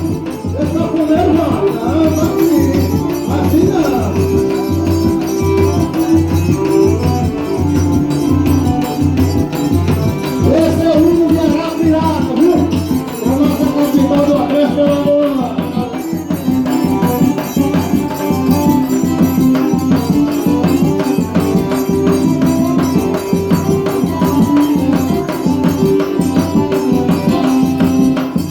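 Live forró music: an accordion playing a sustained melody over a steady, evenly repeating drum beat, with rattling percussion.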